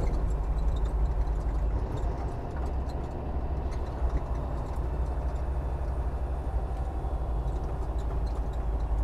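Semi truck's diesel engine and drivetrain running with a steady low rumble heard inside the cab, with faint rattles and a brief knock about four seconds in.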